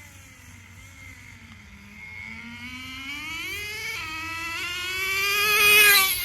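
Small nitro engine of a radio-controlled car running at speed, a high whine that dips in pitch, then rises steadily and grows louder over the last few seconds, loudest just before the end.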